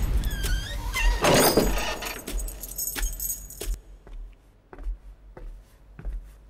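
A loud metallic jangle and crash with ringing tones, then quieter, evenly spaced soft knocks of footsteps on a hard floor, a little under two a second.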